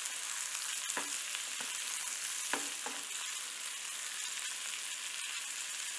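Green tomato slices and dals sizzling steadily in hot oil in a nonstick pan, while a spatula stirs them, scraping and knocking against the pan a few times.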